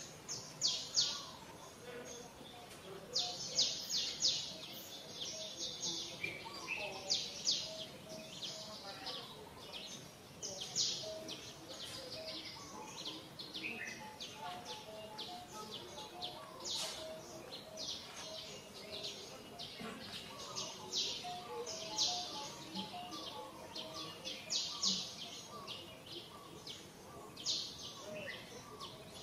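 Small birds chirping in quick clusters of short, high, sharp notes every second or two, over a steady outdoor background with fainter, lower repeated calls.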